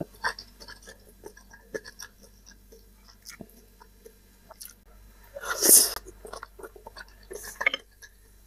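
Close-miked chewing and wet mouth sounds of someone eating instant cup noodles: irregular small clicks and smacks, with one louder, longer noisy sound about five and a half seconds in.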